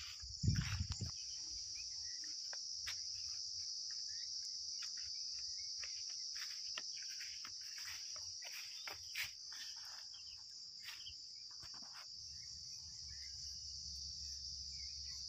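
A steady, unbroken high-pitched insect chorus, with scattered soft clicks and rustles and a louder low thump about half a second in.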